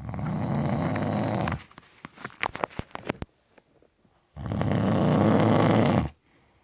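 A man snoring in his sleep: two long, loud snores, each about a second and a half, with a run of short clicks between them.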